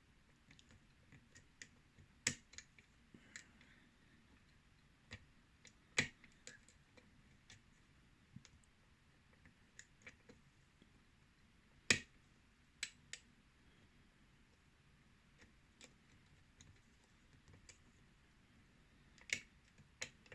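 Faint, irregular clicks of a lock pick working the pins of a Yale-style pin-tumbler lock under tension, with a few sharper clicks standing out among the small ones.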